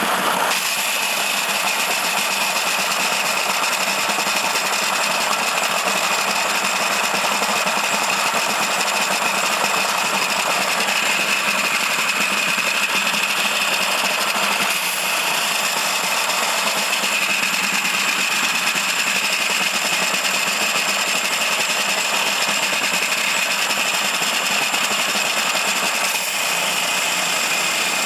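Harbor Freight vibratory tumbler, converted to carry a 5-gallon bucket with a shell-sorting plate, running steadily with a continuous buzz while a load of brass pistol cases rattles across the slotted plate as it sorts them.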